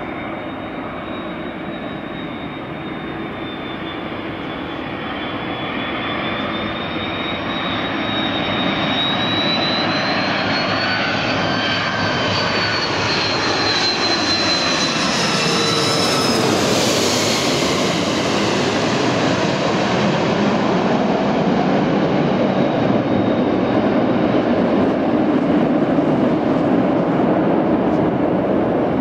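Airbus A330 twin-engine jet airliner on final approach passing low overhead. A high engine whine grows louder and peaks a little past halfway as the jet goes over, then gives way to a lower, steady rumble as it heads for the runway.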